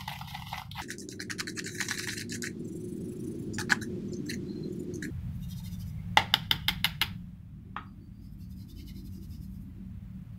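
Wet cement-and-sand mix being worked by hand in a small plastic cup, giving scattered scrapes and clicks, with a quick run of sharp clicks about six seconds in. A steady low hum runs underneath.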